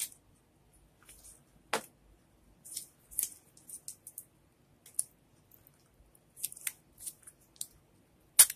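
Thin plastic snack cup crackling and clicking in the hands as its sealed lid is pried and peeled open, in short irregular crinkles, with a few sharp snaps, the loudest near the end.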